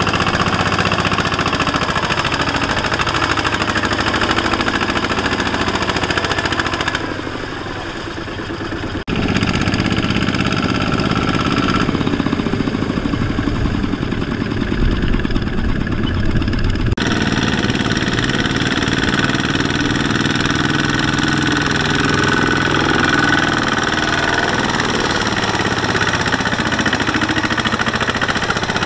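Two-wheel walking tractor's single-cylinder diesel engine chugging under load as it hauls a loaded trailer through deep mud. The sound changes abruptly a few times, with a quieter stretch about a quarter of the way in.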